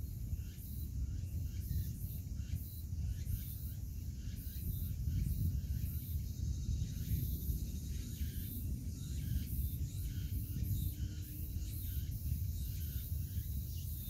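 Exposed tidal mudflat crackling and popping with many tiny bubbles bursting in the mud, a sound the uploader puts down to mudflat crabs breathing. Under it runs a steady low rumble of wind on the microphone.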